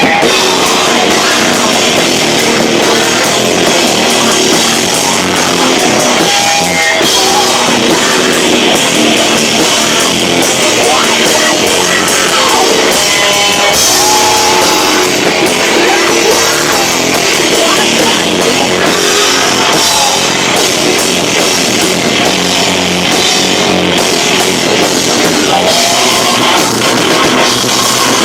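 Live rock band playing loud, with drums and electric guitar. It is recorded distorted through a camcorder microphone that is overloaded by the volume.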